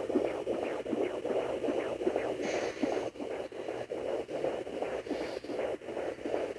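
Fetal heartbeat at 22 weeks through the speaker of a Sonoline B handheld fetal doppler: fast, even whooshing pulses, about two and a half a second, over a static hiss.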